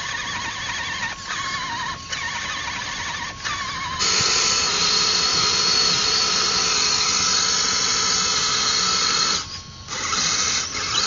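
Electric motors and gearboxes of radio-controlled scale crawler trucks whining under load as they drive through mud. About four seconds in the sound switches suddenly to a louder, higher whine with a hiss, which drops briefly near the end.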